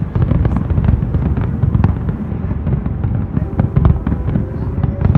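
Aerial fireworks display: many shell bursts and crackles in quick succession, their booms running together.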